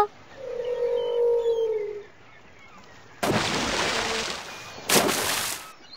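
A single long, slightly falling animal call, then two water splashes: a dolphin leaping out of the sea and dropping back in about a second and a half later.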